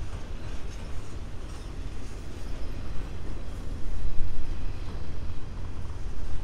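Freight train rolling past, a steady low rumble of wheels and cars on the rails.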